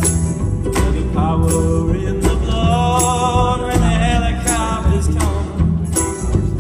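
Live acoustic string band playing an old-time-style song: upright bass notes under fiddle and guitar, with a steady percussion beat about every three-quarters of a second. A melody with vibrato runs through the middle.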